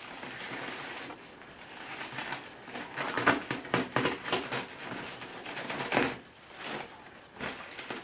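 Clear plastic wrapping crinkling and rustling in irregular crackles as a tightly wrapped parcel is pulled and torn open by hand, louder about six seconds in.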